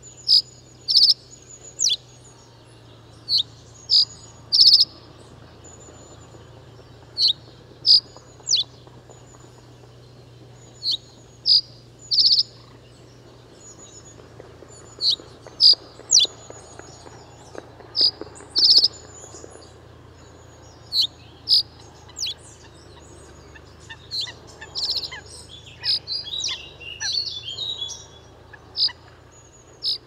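Reed bunting singing: short phrases of about three sharp, high notes, repeated every few seconds, with a quicker, busier run of notes a few seconds before the end.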